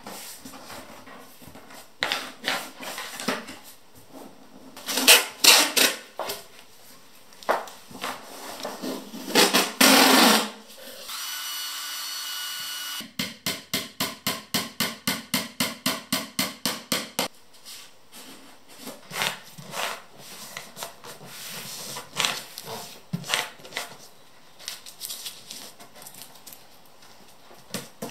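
Bamboo slats of an IKEA Rödeby tray being handled around a round wooden drum form: scattered knocks and rustles, and a steady rasp of about two seconds near the middle. Then comes a quick run of light hammer taps on the slats, about five a second for some four seconds.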